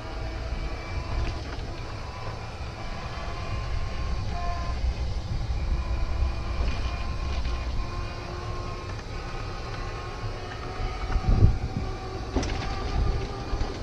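Golf cart driving along at low speed: a steady motor whine whose tones drift slowly up and down, over a constant low rumble. Two sharp knocks come near the end.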